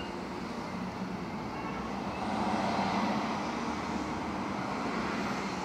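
Steady outdoor traffic and engine hum, swelling a little about halfway through, heard from inside a parked car with its door open.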